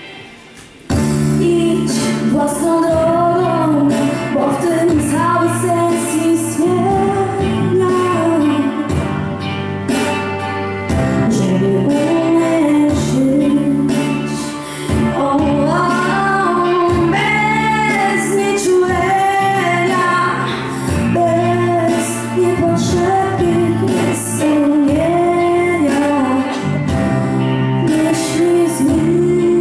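A girl singing a song into a microphone over an instrumental backing; the music comes in loudly about a second in and carries on steadily.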